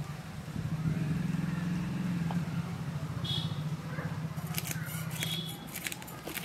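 A steady low engine hum that fades out near the end. Over the last two seconds come rapid sharp scraping clicks as a whole bhetki fish is scraped against the blade of a bonti, the upright Bengali fish-cutting blade.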